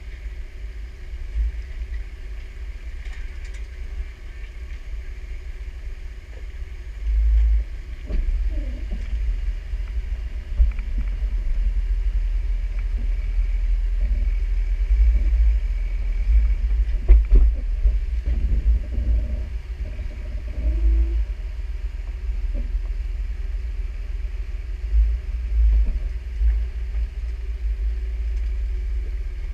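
Jeep crawling slowly over rocks in a creek bed: a steady low engine rumble, with scattered knocks and creaks from the wheels and chassis on rock, the sharpest about halfway through.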